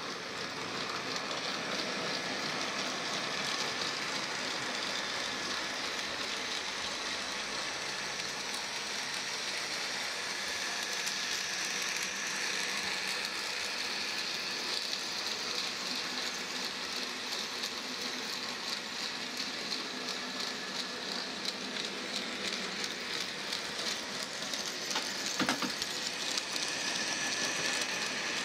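Graham Farish N gauge Class 20 model locomotive running on the track while hauling tank wagons: a steady whirr of its motor and gears with fine rapid clicking of the wheels on the rails, and a couple of louder clicks near the end. It is the bare mechanism only, with no sound decoder fitted.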